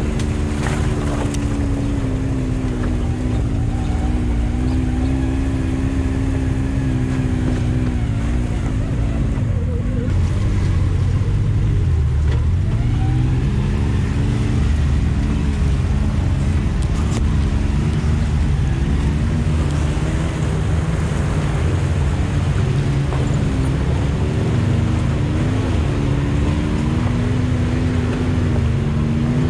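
Side-by-side UTV engine running under load as it crawls over rocks and through water, its pitch rising and falling with the throttle over a constant low rumble.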